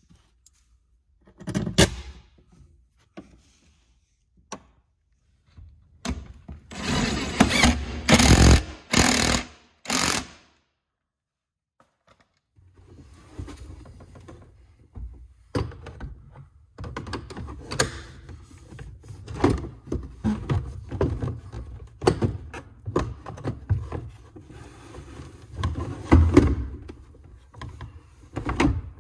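Power drill running in four short bursts, drilling out stripped screw holes in a plastic center console, followed by a string of knocks, clicks and rattles as the console is handled and screwed down.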